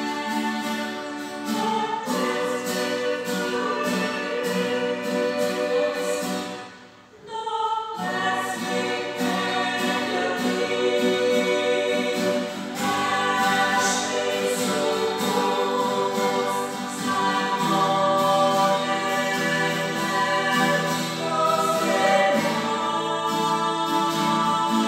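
Three women singing a song in German together, accompanied by two strummed acoustic guitars, with a brief break about seven seconds in.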